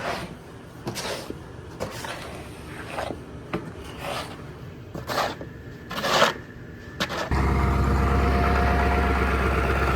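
Irregular scraping and rubbing with a few light knocks. About seven seconds in, a steady low hum starts suddenly, like a motor running.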